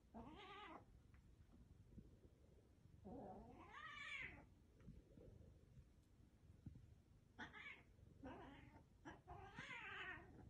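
Cat meowing several times in drawn-out calls whose pitch wavers: a short call at the start, a long one rising and then falling about three seconds in, and three more in quick succession near the end.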